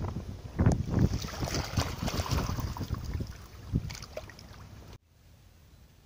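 Small waves lapping and splashing on a sandy, pebbly shore, with wind buffeting the microphone. The sound fades and then cuts off abruptly about five seconds in, leaving only a faint hiss.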